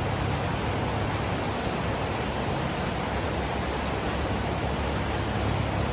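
Waterfall and creek water rushing: a steady, even noise that does not change.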